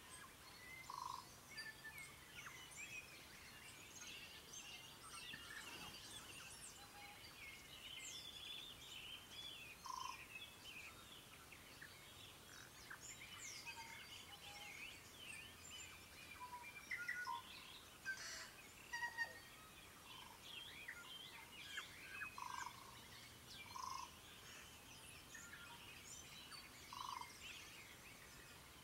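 Morning chorus of many wild birds singing at once: a faint, dense mix of overlapping chirps, whistles and trills, with a lower short note now and then.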